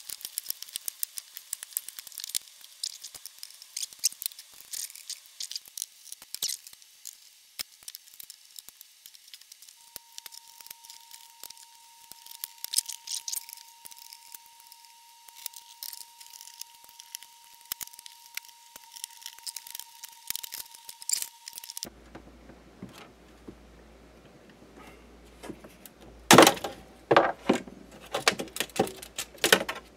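Small clicks and ticks of a screwdriver undoing screws and of wires and parts being handled on an electronics chassis, with a faint steady tone under them for a stretch in the middle. In the last few seconds come louder knocks and scraping as the circuit board is lifted out of its sheet-metal case.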